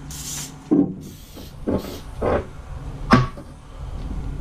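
Aerosol can of cooking spray hissing in a short burst, then a couple of fainter bursts, as it coats the rebar to keep weld spatter from sticking. Several sharp knocks come in between, the loudest about three seconds in.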